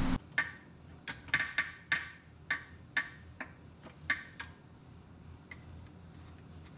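About a dozen light, irregularly spaced clicks or taps over the first four and a half seconds, then only a faint steady background.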